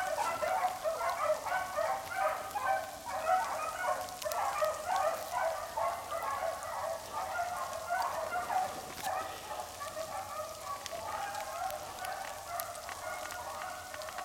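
A pack of beagles baying on a rabbit's track: many overlapping hound voices, growing fainter over the second half.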